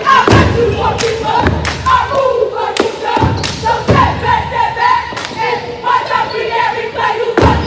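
Cheerleaders chanting a cheer together with heavy foot stomps and sharp claps on the gym floor; the stomps are irregular and several land hard.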